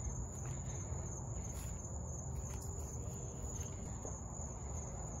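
Crickets trilling steadily at a high pitch, over a low rumble from the handheld camera being moved about.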